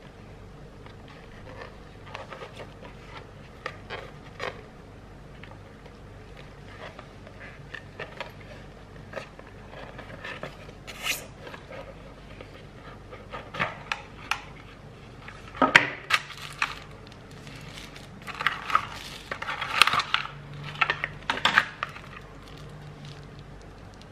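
Small white cardboard box of wireless earbuds being turned over and opened by hand: scattered scrapes, taps and clicks of paperboard. They become louder and busier past the middle as the box comes open.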